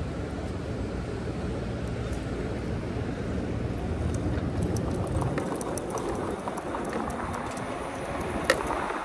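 Steady rush of road and wind noise from a moving fat-tire e-bike. The heavy low rumble eases about five seconds in, and scattered light clicks follow, with one sharp click near the end.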